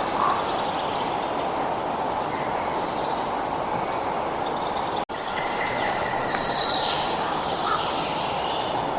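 Short, high bird chirps over a steady rushing noise, cut by a split-second dropout about five seconds in.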